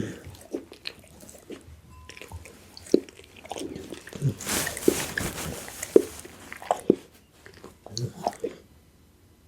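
Pit bull chewing and biting raw food: irregular wet crunches and smacks, with a short hissing, noisy stretch about halfway through. It falls quiet near the end.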